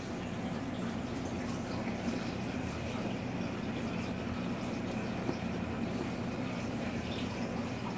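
Reef aquarium's water circulation running: a steady rush and trickle of moving water over a low, even pump hum, with a few faint ticks.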